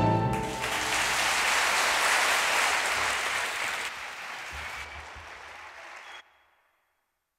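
The final chord of a bandoneon and chamber string orchestra dies away, and audience applause takes over. The applause thins after about four seconds and cuts off suddenly about six seconds in.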